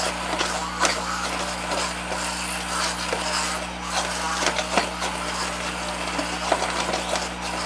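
Handheld immersion blender running in a pot of thick cooked butternut squash soup, puréeing it, with irregular clicks and knocks of the blender against the pot; it cuts out near the end.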